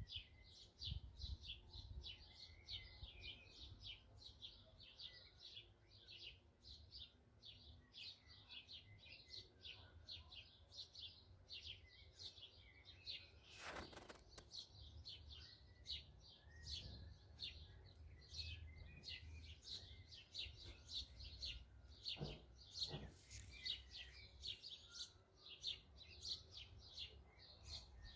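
Several small songbirds chirping and singing almost without pause, in quick high chirps. There is a single sharp click about halfway through.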